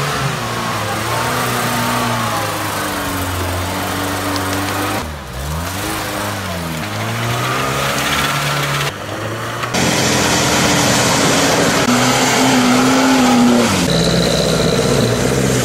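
Off-road 4x4 engines revving up and down under load: first a UAZ grinding through mud, then, for the last third, a Chevrolet Niva revving through a deep muddy puddle with water splashing against the body.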